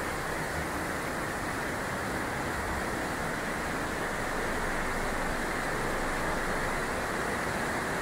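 Waterfall and mountain stream rushing steadily through a narrow rock gorge, an even, unbroken roar of water.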